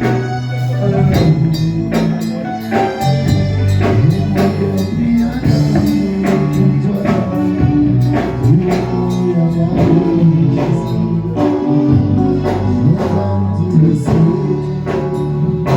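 Gospel worship music from a live church band, with percussion keeping a steady beat under shifting low notes, and some singing.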